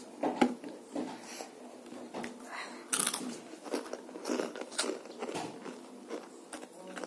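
A child chewing food with irregular wet mouth clicks and smacks, one louder smack about three seconds in.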